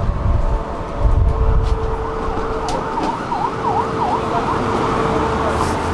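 A tram standing at a stop with a steady whine over low rumble. About halfway through, a short siren-like tone warbles up and down several times.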